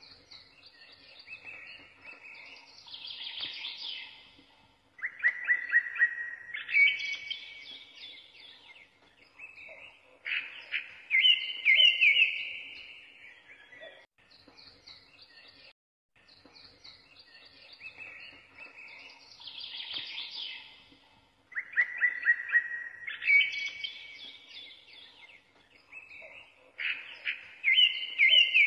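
Birdsong: bursts of bright chirps and trills that repeat in the same order after about 16 seconds, as in a looped recording.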